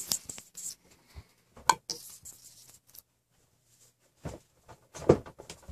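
Handling noise: scattered light clicks and taps of small objects being moved about, the sharpest about a second and a half in and near the end, over a faint low hum.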